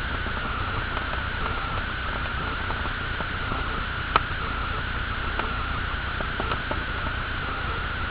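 Faint ticks and scratches of a pen inking small strokes on paper, over a steady hiss and low hum, with one sharp click about four seconds in.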